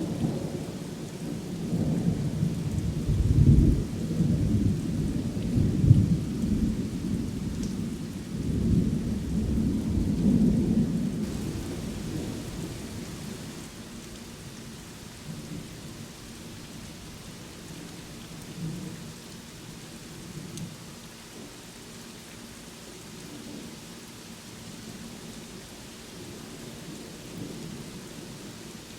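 Thunder rumbling over steady rain, with its heaviest peaks a few seconds in and again around six seconds; the rumble dies away over the next several seconds, leaving the even hiss of rainfall.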